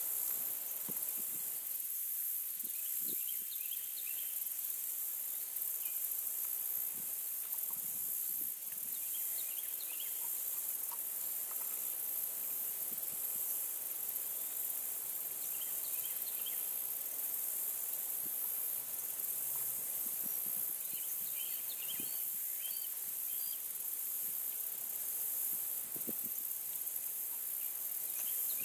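Steady high-pitched drone of a late-summer insect chorus, with a few faint short chirps now and then and occasional soft low knocks.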